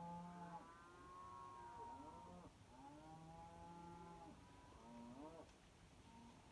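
Faint mooing of cattle: two long, drawn-out moos followed by a shorter one about five seconds in.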